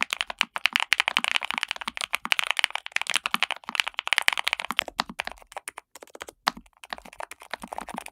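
Fast, continuous typing on a NuPhy Air75 V3 low-profile mechanical keyboard with Gateron low-profile nano switches: a dense run of short key clicks.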